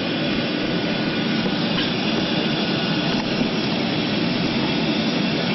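Steady jet engine and cabin noise heard inside an airliner as it taxis, with a faint steady whine.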